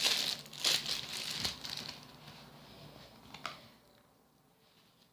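Slime being worked and squished by hand, with crunchy bits in the mix crackling and popping. The crackle fades out after about two seconds, with one more sharp click about three and a half seconds in.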